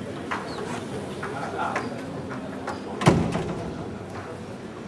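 Chess pieces clicking as they are set down and moved on a board, with a few light clicks in the first two seconds and a louder knock about three seconds in.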